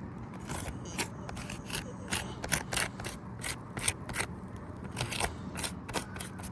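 Asphalt roof shingles crackling and scraping in a run of irregular sharp clicks, a few a second.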